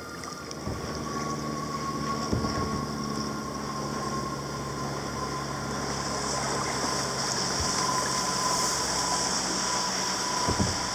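A steady engine hum that grows gradually louder, with a steady high hiss above it.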